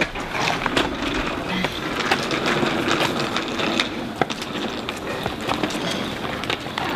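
Wheels of a rolling suitcase rattling over rough concrete pavement: a steady grinding rumble with many irregular clicks.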